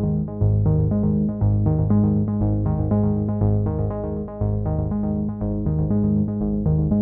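Electronic background music played on synthesizers, with a steady beat.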